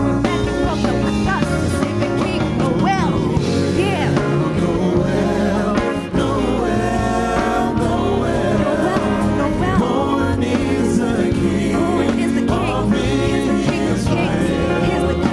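Music with singing over guitar and a steady bass, in a gospel style.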